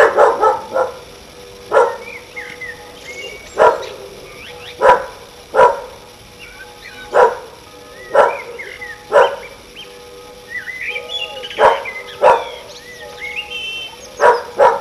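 A dog barking repeatedly: a quick run of barks at the start, then single barks and pairs every one to two seconds, ending in another quick pair. Birds sing between the barks.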